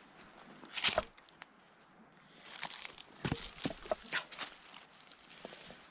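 Footsteps crunching through dry leaf litter and twigs: uneven steps, one loud cluster about a second in and a busier run of steps in the middle.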